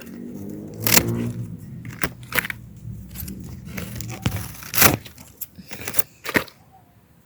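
Swiss chard stalks being cut from the plant: several sharp snaps a second or two apart, with leaves rustling and crinkling in between.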